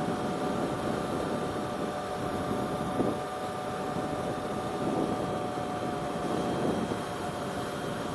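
Motorcycle riding along at a steady speed, its engine holding one steady pitch under wind and road noise, with a brief thump about three seconds in.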